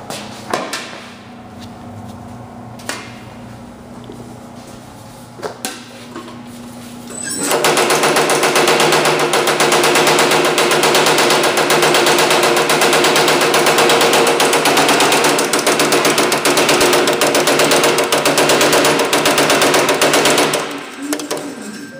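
A Baileigh power hammer pounding an aluminum body panel with a fast, even run of blows, starting about seven seconds in and stopping shortly before the end; the hammering stretches the aluminum to raise the panel. Before it, a few light knocks.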